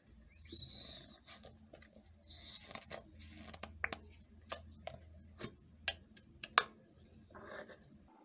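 A plastic squeeze tube of face mask being handled: soft rustling and crinkling, then a run of sharp clicks, the loudest about six and a half seconds in.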